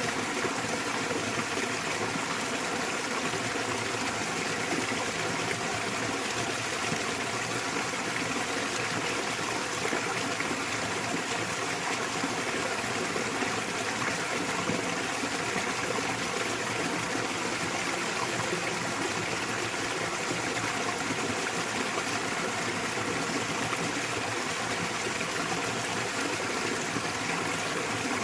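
Small waterfall pouring into a mountain stream: a steady, unbroken rush of splashing water.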